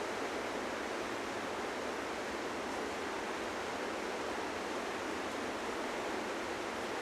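Steady rush of a mountain river's rapids, an even noise with no breaks or separate events.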